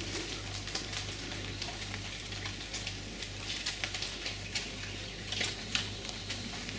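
Steady crackling hiss, full of small irregular ticks, over a constant low hum.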